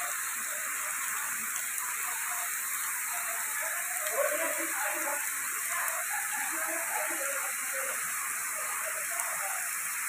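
Waterfall pouring off a rock cliff: a steady rushing hiss of falling water and spray.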